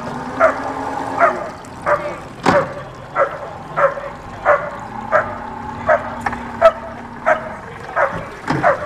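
Police dog barking repeatedly, about a bark and a half a second, over a steady low hum.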